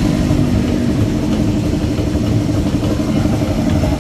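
A motorcycle engine idling steadily.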